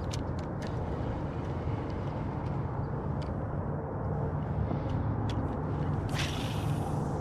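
Scattered light clicks of a spinning reel being handled, then a short hiss about six seconds in as the rod is cast and line leaves the spool, over a steady low rumble.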